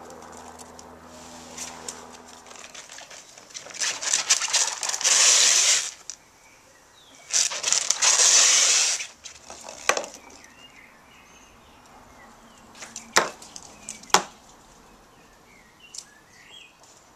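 Ferrets at play on wooden decking: two loud spells of rustling and scrabbling, then a few sharp knocks, with faint bird chirps in the background.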